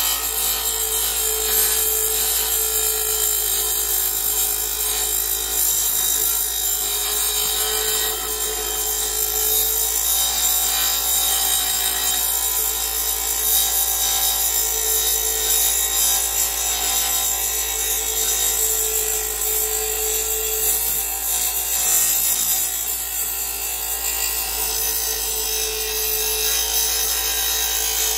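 Porter-Cable bench grinder running with a steel lawn mower blade held against its wheel: a steady, continuous grinding of metal, with the motor's hum under it, as the blade's cutting edge is sharpened.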